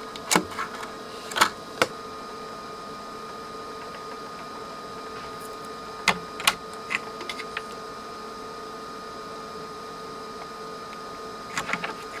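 Sharp metal clicks and taps of pliers and a soldering iron tip against solder joints as a transformer's lead wires are unsoldered from a circuit board: a few clicks in the first two seconds, a couple about six seconds in, and a quick cluster near the end, over a steady background hum.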